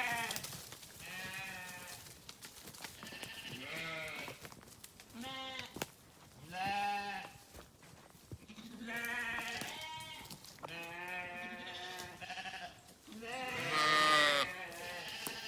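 A flock of sheep bleating over and over, one call after another from several animals, each a wavering, quavering bleat. The loudest calls come near the end.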